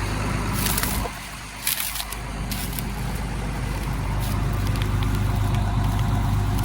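Farm tractor engine running steadily with a low hum. A few sharp clicks and crackles come between about half a second and two and a half seconds in.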